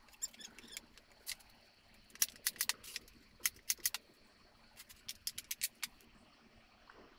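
A scatter of light, sharp clicks and taps from plywood drawer parts being handled and set down on a wooden workbench, some coming in quick runs of several clicks.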